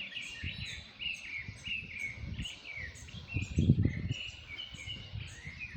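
Several birds singing: a dense run of short, repeated chirping notes. A low rumbling noise runs underneath and swells briefly about three and a half seconds in.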